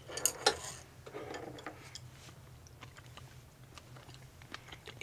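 Quiet eating sounds: a few sharp clicks of chopsticks against a griddle pan at the start, then chewing and small scattered ticks while someone eats a piece of scallop.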